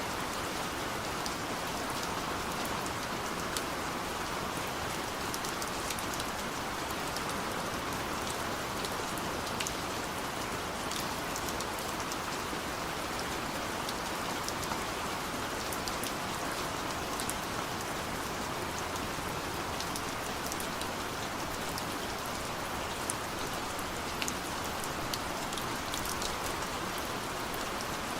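Steady rain falling, an even patter with scattered sharp drop ticks throughout.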